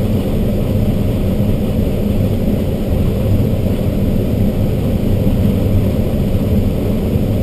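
Steady rush of airflow in an ASK-21 glider's cockpit during an aerotow, under the even drone of the Piper tow plane's engine ahead.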